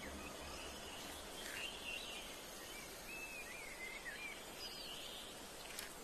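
Faint natural ambience: a steady low hiss with a few soft, short bird chirps, most of them about halfway through.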